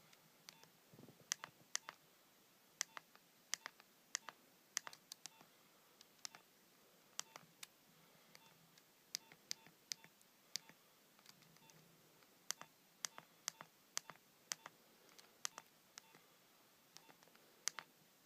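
Nokia 7250i keypad buttons being pressed over and over, a faint run of separate sharp clicks, often in quick pairs, some with a faint short key beep.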